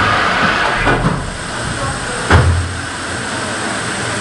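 1856 Harvey & Co. Bull engine, a Cornish-cycle steam pumping engine, working under steam: a steady hiss of steam with a small knock about a second in and a heavy thud a little past two seconds in.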